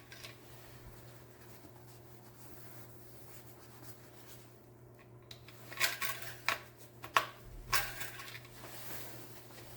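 Honda Fit engine oil dipstick being handled, with a few short metallic clicks and scrapes about six to eight seconds in while the oil level is checked. A faint steady hum runs underneath.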